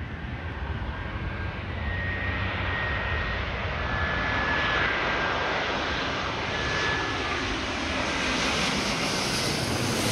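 Airbus A350's twin Rolls-Royce Trent XWB jet engines on final approach, growing louder over the first couple of seconds as the airliner comes in low overhead. A steady thin whine rides over the rushing jet noise, which turns brighter and hissier near the end as the plane passes directly above.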